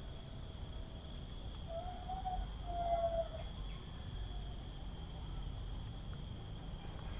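Steady high-pitched chorus of insects such as crickets, with two faint wavering tones about two and three seconds in.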